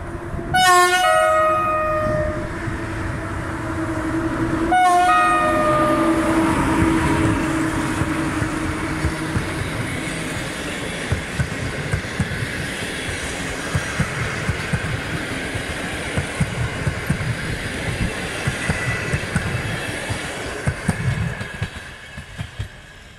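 EP07 electric locomotive sounding its horn twice, two short blasts about four seconds apart. Its passenger coaches then roll past with a rhythmic clickety-clack of wheels over rail joints, fading near the end.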